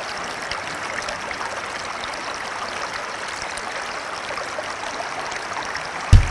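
Steady rush of running, trickling water. Near the end a loud low thud comes in as guitar music starts.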